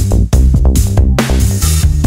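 Electronic background music with deep sustained bass notes and a steady beat.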